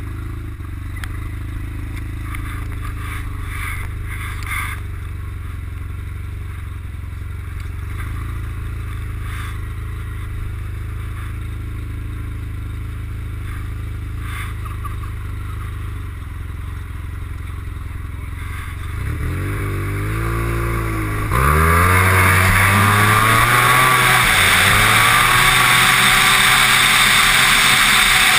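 Turbocharged Arctic Cat SnoPro 1100 snowmobile engine idling steadily, then revved in a few short blips, then launched at full throttle about 21 seconds in. From there it makes a loud roar that climbs in pitch as the sled accelerates down the drag strip.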